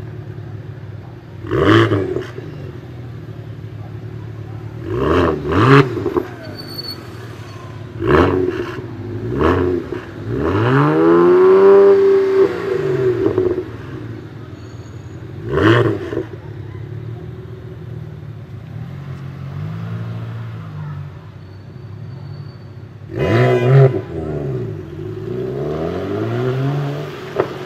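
BMW 1M Coupé's twin-turbo straight-six idling between a series of quick throttle blips, with one longer rev about ten seconds in that climbs and falls over roughly two seconds. The blips are followed by sharp crackles and pops from the exhaust, from an anti-lag setup.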